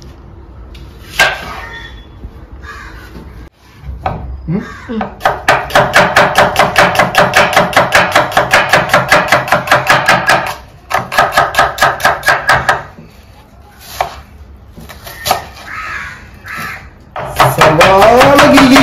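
Knife slicing onions on a wooden cutting board: quick, even knocks of the blade on the board, coming in runs of several seconds with short pauses between.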